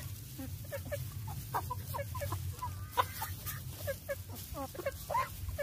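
A flock of chickens clucking, many short calls from several birds in quick, irregular succession.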